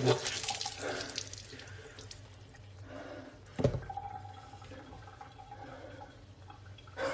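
Liquid dripping and splattering, with one sharp knock about three and a half seconds in.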